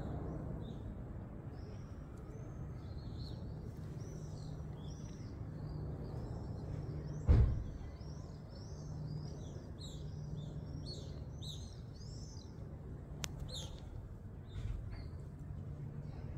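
Small birds chirping and twittering in a rapid string of short high calls that thin out near the end, over a steady low background hum. A single loud thump comes about seven seconds in.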